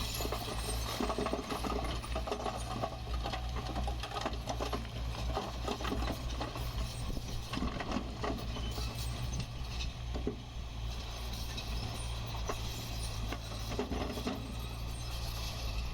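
Heavy earthmoving machine at work: a steady low diesel drone with continual metallic clattering and rattling over it.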